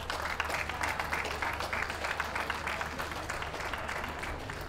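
Audience applauding: a dense patter of many hands clapping that eases off toward the end.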